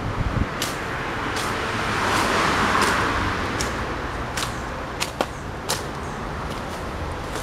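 Footsteps on dry leaf litter and twigs: scattered sharp snaps and crackles, over a steady background rush of noise that swells and fades in the middle. There is a low thump near the start.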